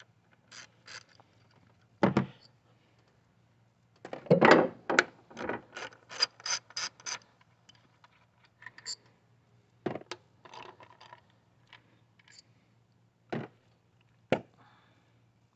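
Hand ratchet clicking as the 10 mm ignition-coil bolts are unscrewed, with a quick run of clicks about four to seven seconds in, at roughly four or five a second. Separate knocks and taps of tools and metal parts come in between.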